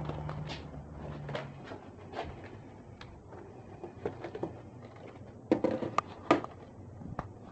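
Handling noise of a foam RC plane being carried and set down on a cluttered workbench: scattered light clicks and knocks, with a few louder knocks about five and a half to six and a half seconds in.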